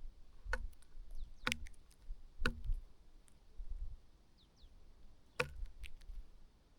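A bird pecking at food on a feeder: four sharp taps, three about a second apart, then one more after a pause, with a couple of faint thin high calls from small birds in between.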